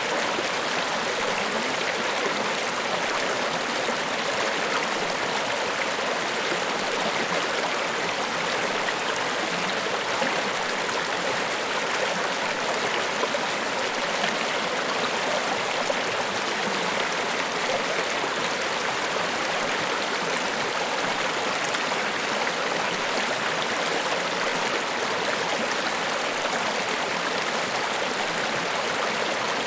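Steady, unbroken rush of falling water at Niagara Falls, mostly a high hiss with little deep rumble.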